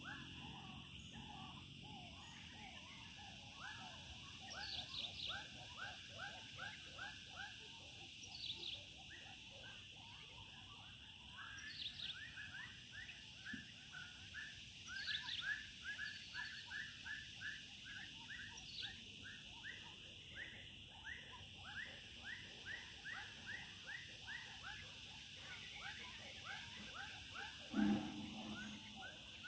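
Evening chorus of frogs and insects: rapid, repeated short chirping calls over a steady high insect drone, with a higher chirp every few seconds. Near the end comes one short, louder low-pitched sound.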